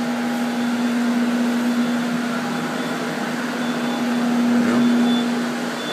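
Drying fans running with a steady hum and rush of air, set out to dry a flooded building whose carpets and drywall have been stripped out.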